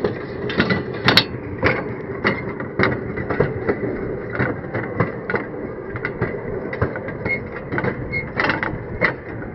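Human-powered rail draisine rolling on narrow-gauge track: a steady rumble of steel wheels on rails with frequent irregular clicks and knocks, a sharp click about a second in.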